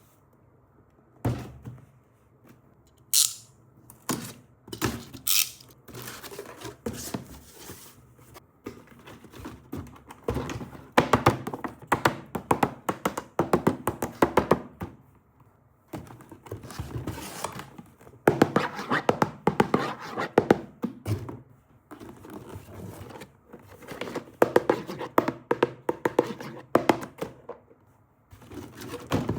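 A toy box and its packaging being handled and opened by hand: scattered thunks and taps, with stretches of dense rustling and scraping.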